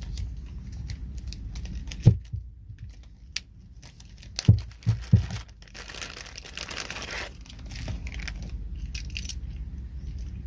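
Plastic packaging crinkling and tearing as a camera mount part is unwrapped, with a few sharp knocks of parts being handled: one about two seconds in and three close together around four and a half to five seconds.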